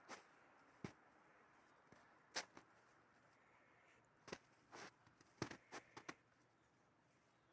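Faint footsteps crunching in snow, slow and uneven, stopping about six seconds in.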